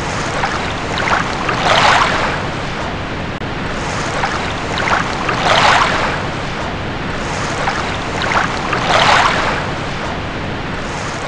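Ocean surf: a steady rush of waves with a louder wave breaking and washing in about every three to four seconds.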